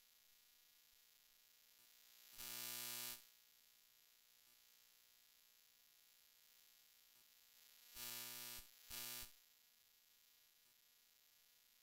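Faint steady electrical hum and hiss, broken by three short, flat buzzing tones: one of nearly a second about two and a half seconds in, then a quick pair about eight seconds in.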